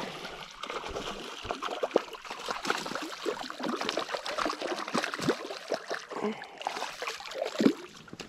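Water splashing and trickling at a rocky lake shore as a small spotted bass is reeled in on the line, with a sharp, louder moment near the end.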